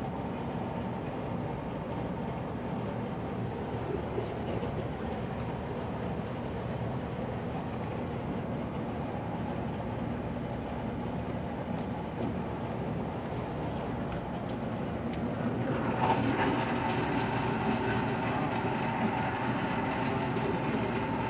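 Rooftop air conditioning unit running: a steady mechanical drone with a few held tones from its fans and compressor. It grows louder and brighter about sixteen seconds in.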